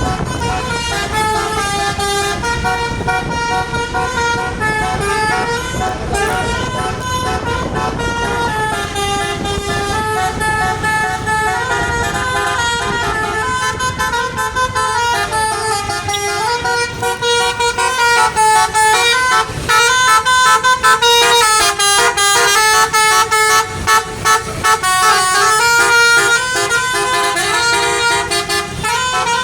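Tour bus's Basuri telolet multi-tone horn playing a continuous tune of stepping notes over a low vehicle rumble. The notes get louder and choppier in the second half.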